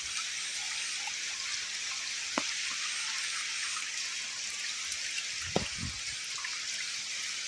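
A steady high-pitched hiss of outdoor background noise, with a sharp tick about two and a half seconds in and a louder, duller knock a little past halfway.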